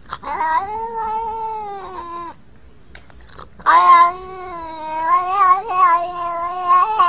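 Domestic cat giving two long, drawn-out yowling meows. The first lasts about two seconds and dips in pitch at its end. The second starts loudly a little past halfway and wavers up and down in pitch as it runs on.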